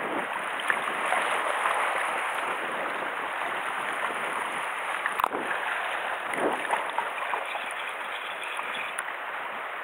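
Sea water washing and sloshing against the shoreline rocks: a steady rushing hiss, with a single sharp click about five seconds in.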